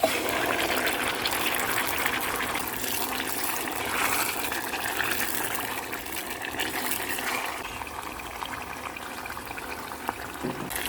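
Sizzling of wet mashed garden eggs and scotch bonnet pepper hitting hot oil and onions in a frying pan, starting suddenly and gradually easing off.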